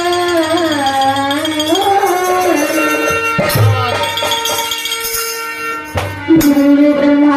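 Devotional music: a sliding melodic line is followed by rattling hand-percussion strikes, and then a steady held tone for the last second or so.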